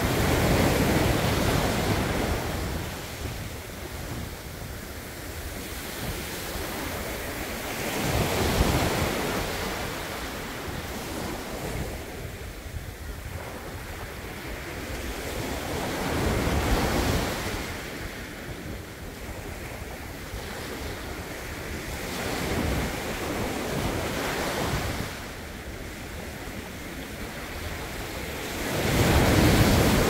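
Small sea waves breaking and washing up a sandy beach: a steady surf sound that swells with each breaker about every six to eight seconds, loudest at the start and near the end, with wind rumbling on the microphone.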